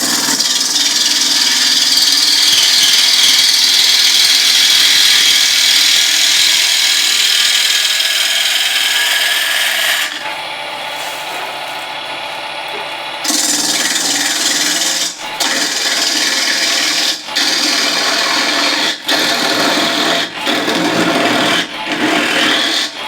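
A bowl gouge cutting a spinning beech blank on a wood lathe, a loud hissing scrape of the tool on wood. The cut holds steady for about ten seconds and eases briefly, then comes as a string of short passes, each broken off by a brief gap as the gouge is lifted.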